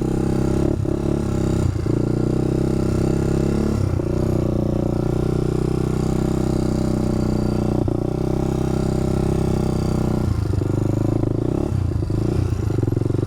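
ATV engine running at a steady, even pitch, with a few scattered knocks and clattering from the machine working over rough ground.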